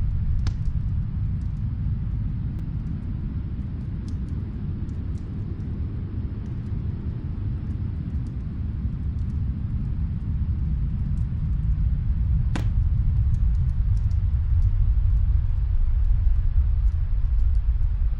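Snowstorm wind as a steady low rumble that eases a little and then grows stronger in the second half, with a few sparse faint pops from a crackling fireplace, one sharper crack near the middle.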